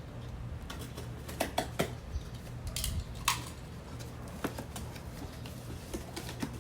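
Unpacking and handling a boxed motorcycle exhaust: a string of light clicks and taps, a short rustle of packaging with a sharp click about three seconds in, and a few scattered ticks over a low steady hum.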